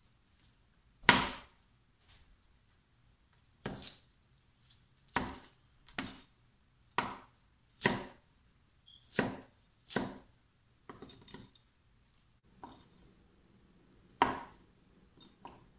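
Cleaver chopping bok choy and fried tofu on a wooden cutting board: about a dozen separate chops, roughly one a second, each a sharp knock of the blade on the board.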